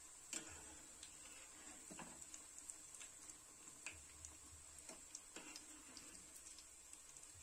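Breadcrumbed chicken donuts deep-frying in oil in a pan, faint, with scattered small ticks and crackles; the sharpest comes about half a second in.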